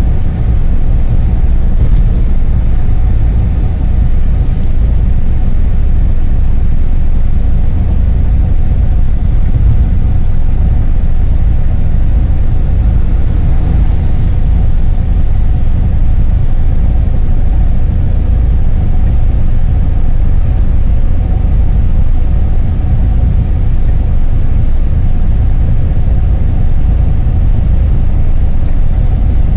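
Steady loud low rumble of road and engine noise heard from inside the cabin of a moving vehicle on a wet highway.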